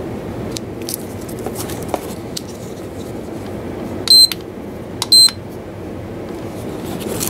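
RC hobby battery charger beeping twice, two short high-pitched beeps about a second apart, with light clicks of handling around them.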